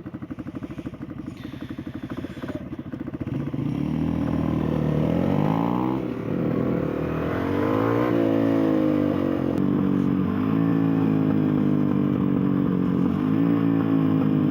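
A 125cc supermoto's single-cylinder engine idling with a steady pulse, then pulling away about three and a half seconds in: the revs climb, drop at a gear change, climb and drop again, then settle into a steady run.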